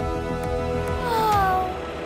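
Cartoon background music with steady held tones, and about a second in a short pitched cry that slides down in pitch before stopping.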